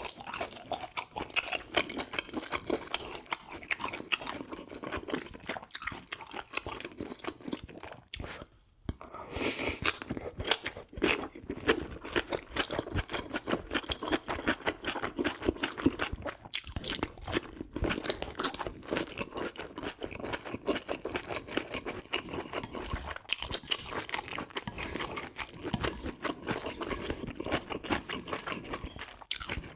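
Close-miked chewing and crunching of food, a dense run of fast crackles and clicks with a brief pause about eight seconds in.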